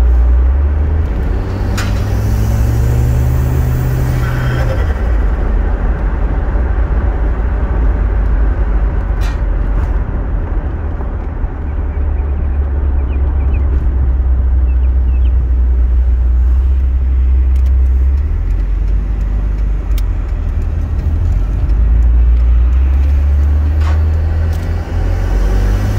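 Volvo 940 Turbo's turbocharged four-cylinder engine and road noise heard from inside the cabin while driving. The engine note rises as the car accelerates in the first few seconds, holds steady while cruising, and climbs again near the end.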